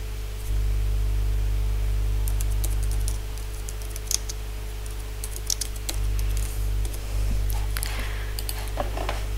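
Computer keyboard typing: small clusters of quick key clicks, over a steady low electrical hum.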